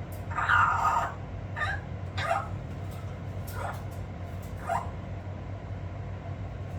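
Amazon parrot calling: one short call, then four brief falling chirps about a second apart, over a steady low hum.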